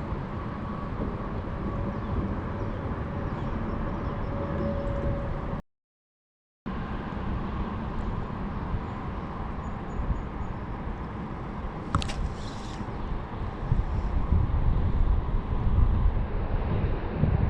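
Wind buffeting the microphone over a steady outdoor rumble, growing gustier near the end, with a single sharp click about two-thirds of the way through. The sound cuts out completely for about a second a third of the way in.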